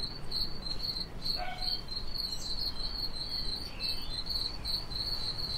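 Cricket chirping sound effect, a steady run of short, even chirps over a faint hiss. It is the cartoon gag for an awkward silence after a line falls flat.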